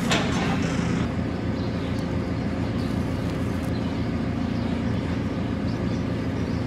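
A farm loader's engine running steadily, with a short rushing burst of noise about the first second.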